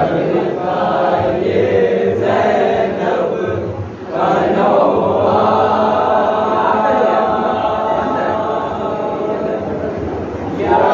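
Men's voices chanting a Shia noha, a mourning lament, together in drawn-out sung lines. There is a short break about four seconds in, after which the chorus comes back louder and holds long notes.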